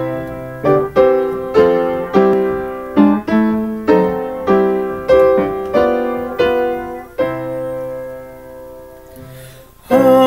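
Upright piano playing a hymn introduction in struck chords, each fading after it is played, ending on a long held chord that dies away. A voice starts singing with the piano right at the end.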